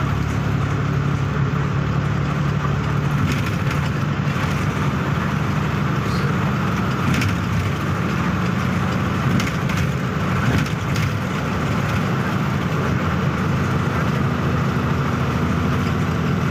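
Engine of a moving road vehicle running steadily at cruising speed, heard from on board over tyre and road noise, with a few short rattles.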